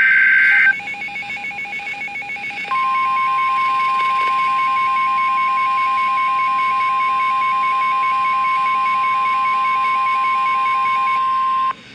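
Emergency Alert System tones: the last burst of the screeching SAME data header ends within the first second. A rapidly pulsing alert beep follows, several beeps a second. About 2.7 s in, the steady 1050 Hz weather-radio warning alarm tone joins it, and both cut off just before the spoken warning.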